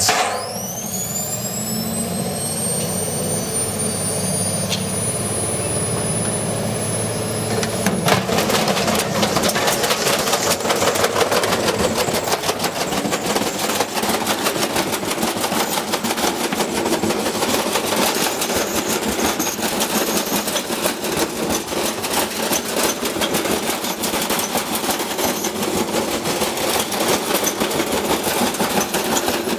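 Washing machine's universal brush motor starting a spin with a 20 kg sealed lead-acid battery in the drum, its whine rising in pitch as the drum speeds up. About eight seconds in there is a loud bang, and after it rapid, continuous banging and rattling as the badly unbalanced load hammers the drum around.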